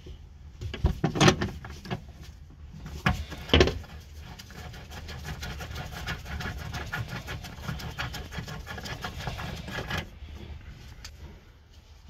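Ratchet with a 17mm socket undoing the seat belt's lower anchor bolt: a few sharp knocks in the first four seconds, then rapid, steady ratchet clicking for about six seconds that stops suddenly.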